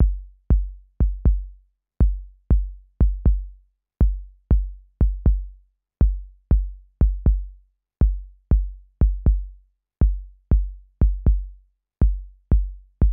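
Electronic kick drum like the Roland TR-808's, in a looping pattern of four hits every two seconds. Each hit is a sharp click falling into a deep, decaying boom. The kick runs through a compressor with its DEEP control engaged, a high-pass filter in the side-chain, so the low end triggers less compression.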